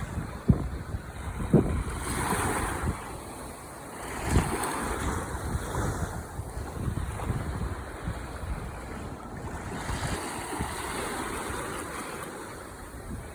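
Ocean waves breaking and washing onto the shore, the surf rising and falling in swells. Wind buffets the microphone with a few low thumps.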